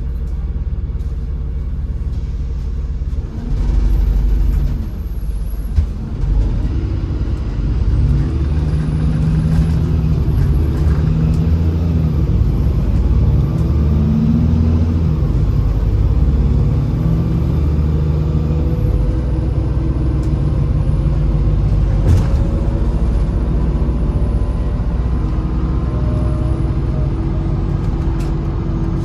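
Inside a MAZ-203 city bus: the engine and drivetrain rumble, quieter at first and then louder from about three seconds in as the bus gets under way. The engine note shifts in pitch as it runs, with a couple of sharp knocks from the body and a faint high whine.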